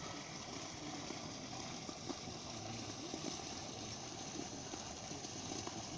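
Steady splashing rush of water falling over a garden water-fireplace waterfall feature.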